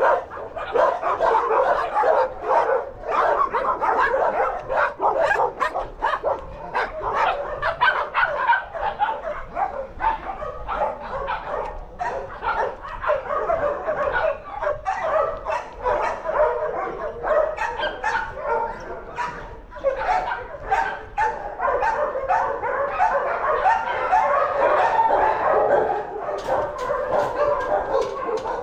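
Many dogs barking and yelping at once, a constant overlapping din of kennelled shelter dogs with some whimpering mixed in.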